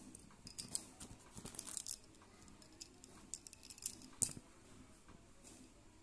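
Soft clicks and rattles of plastic stacking-point pencils being picked up and handled, their segments knocking together, with the sharpest click a little past the middle.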